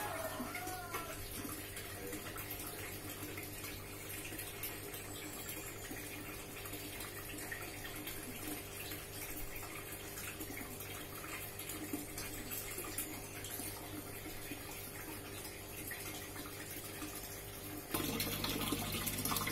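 Water running steadily over a low, steady electrical hum; the water gets louder in the last second and a half.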